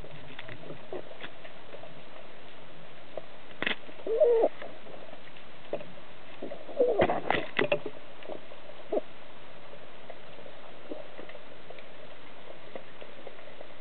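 Underwater sound heard through a camera housing on a speargun: a steady faint hiss with scattered sharp clicks and two short bubbling gurgles, about four and seven seconds in.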